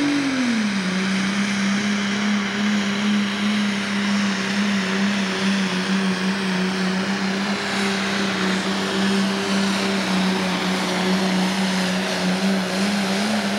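Pro stock pulling tractor's turbocharged diesel engine running wide open under load as it drags the weight-transfer sled. The engine note drops in the first second, then holds steady and loud, lifting slightly near the end.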